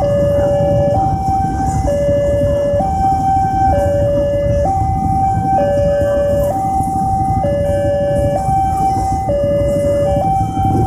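Railway level-crossing warning alarm sounding a two-tone electronic signal, switching between a lower and a higher tone about once a second, over the steady low rumble of a passing passenger train.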